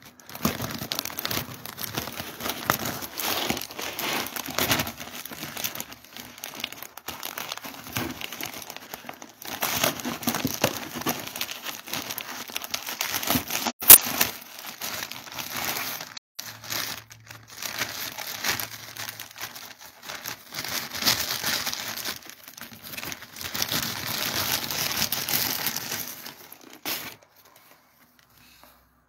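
A plastic fish bag crinkling and rustling as it is handled, in uneven bursts, with one sharp click about fourteen seconds in; the rustling stops near the end.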